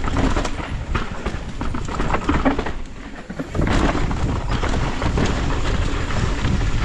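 Mountain bike clattering down a rough dirt trail: tyres on loose dirt, with the frame and chain rattling over bumps and wind on the helmet-camera microphone. It eases off briefly about three seconds in, then picks up louder again.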